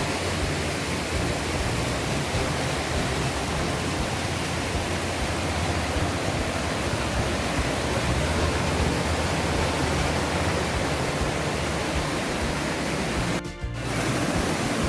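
Small waterfall's water rushing steadily, with a brief break about 13.5 seconds in.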